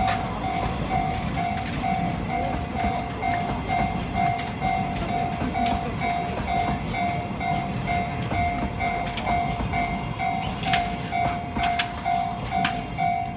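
Japanese level-crossing alarm ringing steadily, about two dings a second. Under it is the low rumble of a train rolling through the crossing, with sharp clicks of wheels over rail joints. The train is an EF65 electric locomotive hauling new subway cars.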